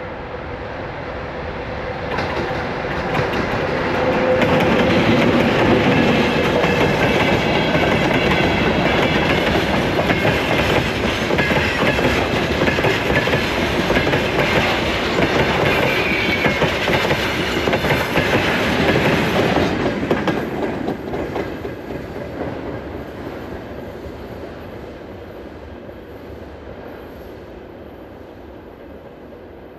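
ChME3 shunting diesel locomotive hauling a mixed freight train past. The diesel comes up over the first few seconds, then the wagons roll by with their wheels clattering over the rail joints. The sound fades steadily over the last ten seconds as the train moves away.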